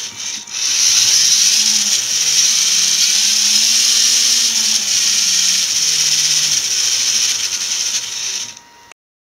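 Lego Technic electric motor whirring as it drives the plastic gears, chain and spinning flyweights of a centrifugal tachometer, its pitch rising and falling once in the middle as the speed changes. It drops briefly about half a second in, fades near the end and cuts off suddenly.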